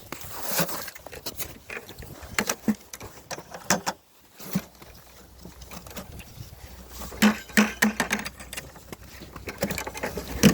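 Footsteps on snow-covered ice and fishing gear being handled: irregular scuffs and knocks, with a cluster of louder ones about seven to eight seconds in.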